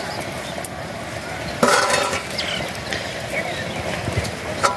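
Steel cookware and utensils clinking by an open cooking fire: a loud, ringing metal clatter about a second and a half in and a sharp clink near the end.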